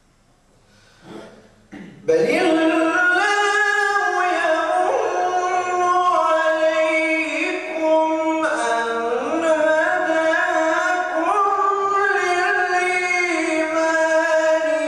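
A male reciter chanting the Quran in the melodic tajwid style, one long ornamented phrase with held, wavering notes, beginning about two seconds in.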